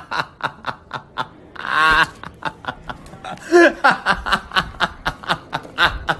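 A man laughing hard in a fast run of short bursts, with a couple of longer pitched peals of laughter about two seconds and three and a half seconds in.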